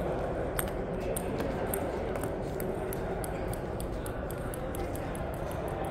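Steady background noise of a large sports hall between table tennis points, with a few faint, sharp clicks in the first couple of seconds.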